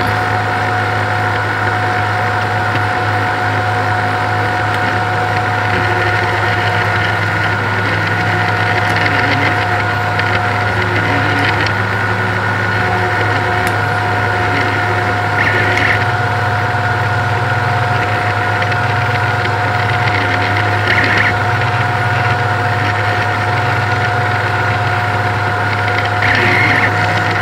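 A 3D printer running: a steady hum and fan whine, with stepper motors underneath that keep changing pitch as they move. A few brief faint clicks come through now and then.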